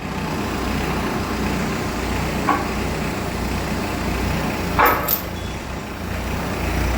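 Kubota M59 tractor-loader-backhoe's diesel engine running under load as the loader lifts, getting louder right at the start, with a short knock about two and a half seconds in and a sharper one about five seconds in.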